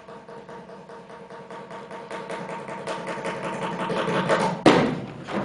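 Many feet stamping fast and evenly on a stage floor, growing louder and louder, then one loud stamp together near the end. A faint steady hum runs beneath.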